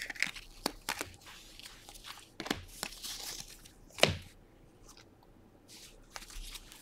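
A trading card pack wrapper being torn open and crinkled by hand, with light clicks of cards being handled and one sharper tap about four seconds in.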